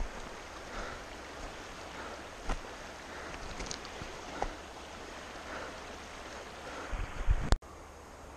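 Steady rush of a river with wind buffeting the microphone, and footsteps crunching on a gravel bank at a walking pace. A few heavy bumps come near the end, then the sound cuts suddenly to a quieter steady rush.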